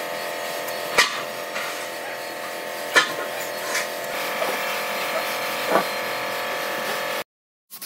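A workshop machine's motor running steadily with a whine, with sharp knocks about one and three seconds in and lighter ones later. The sound cuts off suddenly near the end.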